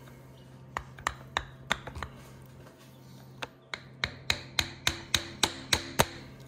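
Hammer taps on a brass drift, driving an adjustable pushrod guide plate sideways on a big-block Chevy cylinder head to centre the pushrod under the roller rocker tip. There are a handful of separate taps, then a quicker, louder run of about ten, roughly three a second, each with a short metallic ring.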